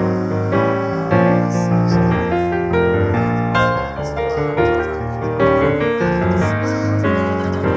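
Background music led by piano or keyboard, playing a steady run of chords and melody notes.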